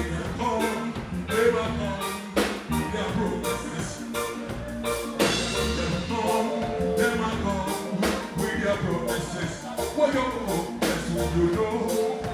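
Live band music with a man singing into a handheld microphone over a steady drum beat.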